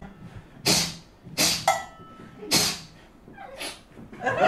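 A stage performer's comic vocal noises: five short, sharp, breathy bursts about a second apart. Near the end, audience laughter rises.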